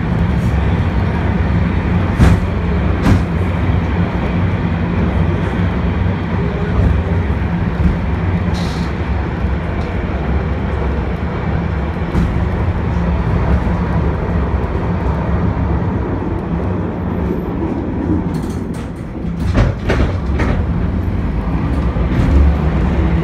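M-24 museum tram running along the street, heard from inside the car: a steady, loud low rumble of wheels and running gear on the rails, with an occasional sharp click or knock.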